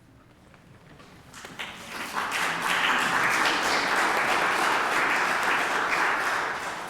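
Congregation applauding, many hands clapping together. It builds up about a second and a half in, holds steady, and dies away near the end.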